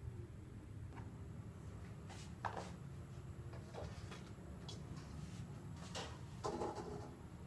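Light knocks and clatters of items being handled at a kitchen counter and sink, about seven separate ones, over a steady low background rumble.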